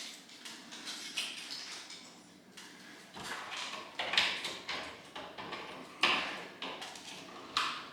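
Scraping and clicking of plastic as an old hardwired smoke detector and its cover are taken down from the ceiling: a handful of short scrapes that start suddenly and fade, a second or two apart.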